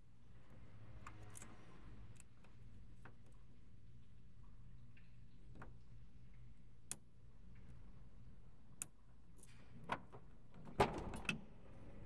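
Lock-picking tools working the key cylinder of a 2013 Ford Mustang's door lock: scattered light metallic clicks a second or so apart, then a quick cluster of louder clicks near the end as the picked cylinder turns and the lock opens.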